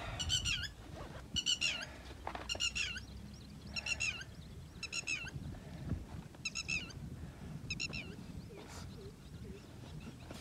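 A bird calling over and over: a short, high call repeated about once a second, growing fainter near the end.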